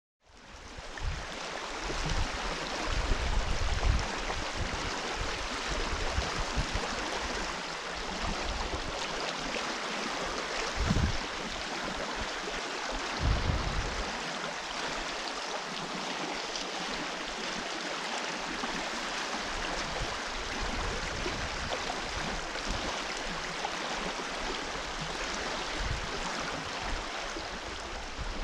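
River water rushing steadily, with irregular low thumps and rumbles, strongest in the first few seconds and twice more around the middle.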